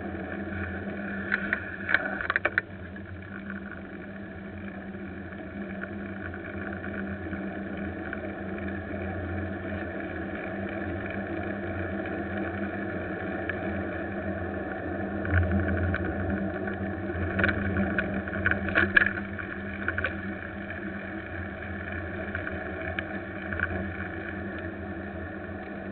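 Steady rumble and road noise of a vehicle moving along a city street, with short bursts of rattling about two seconds in and again around seventeen to nineteen seconds.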